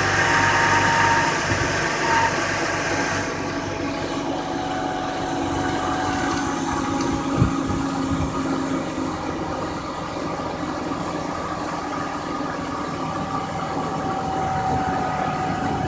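BMW 323i's 2.5-litre straight-six idling steadily on a cold engine. Faint high steady tones sit over the idle for the first few seconds and fade out.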